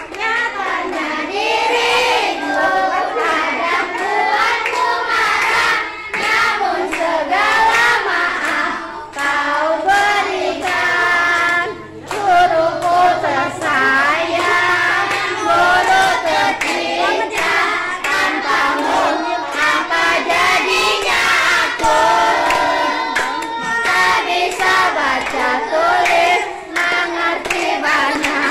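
Children's voices singing a song together, with scattered hand claps.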